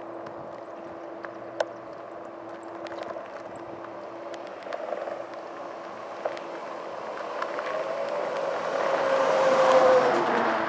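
A box truck approaching in the oncoming lane and passing close by, growing louder over the last few seconds and peaking about ten seconds in, its tone falling slightly in pitch as it goes by. Scattered light clicks and a steady hum run underneath beforehand.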